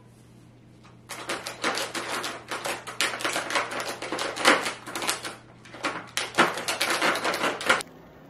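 Small dog working a plastic puzzle feeder, its plastic pieces and tray rattling and clacking quickly and irregularly as it digs at them for treats. The clatter starts about a second in and cuts off just before the end.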